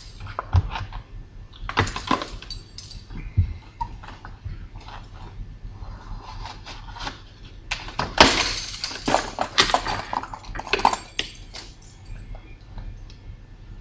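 Rigid plastic blister packaging being cut open with a small multi-tool knife blade: irregular crackles, clicks and scrapes of plastic being handled. The loudest, densest crackling comes about eight seconds in.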